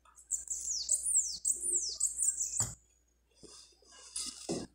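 A quick run of about five high chirps, each falling in pitch, followed a little after halfway by a single sharp click.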